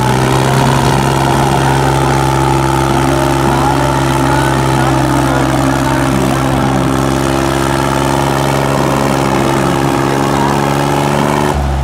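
Two tractors' diesel engines held at full throttle, pulling against each other in a tug-of-war hard enough to lift the blue tractor's front wheels and send black smoke from its exhaust. Loud, steady engine note at an even pitch that drops off near the end as the pull is eased.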